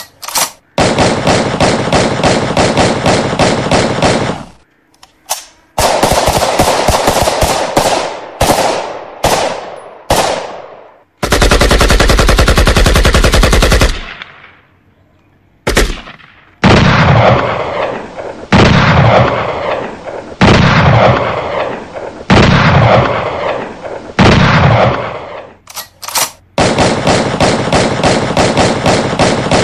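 Long strings of rapid sharp bangs like machine-gun fire, broken by a few seconds of steady loud noise near the middle. In the second half come heavier single bangs, about one every two seconds, each ringing out and fading.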